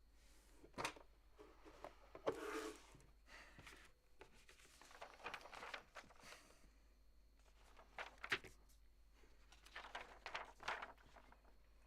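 Faint scattered clicks and short rustles in a quiet small room, like soft handling and movement noises, with a sharp knock about a second in and a pair of clicks about eight seconds in.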